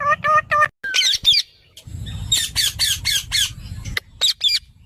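Parrot giving quick runs of short, sharp squawking calls: three fast calls at the start, a cluster after a second, a run of about six between two and three and a half seconds in, and two more near the end.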